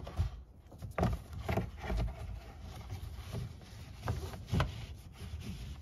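Handling noise of a kayak tie-down strap being knotted: rustling webbing with a scattered series of soft knocks and thumps against the kayak and rack.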